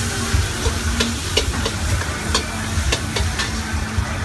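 Metal spoon clinking irregularly against a wok over a gas burner, about two sharp clinks a second. A steady sizzling hiss and a low rumble run underneath.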